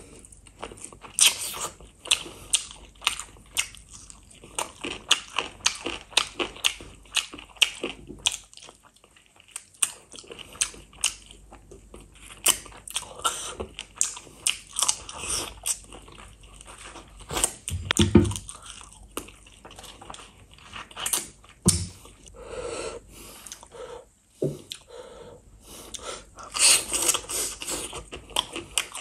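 Close-miked chewing and biting of chicken feet eaten by hand: wet mouth sounds with many irregular crunches, and a short lull about nine seconds in.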